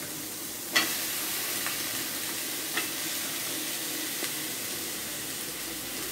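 Diced beans, carrots and potato sizzling steadily as they sauté in hot oil in a metal pan. A few sharp clinks of a steel ladle against the pan break in, the loudest just under a second in.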